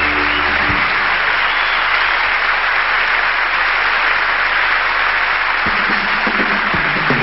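Theatre audience applauding steadily, with the last held chord of the band fading out about a second in.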